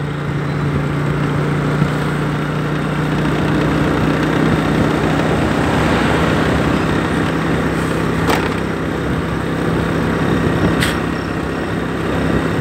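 Motorbike engine running at a steady low hum, with road and wind noise, heard from on the moving bike.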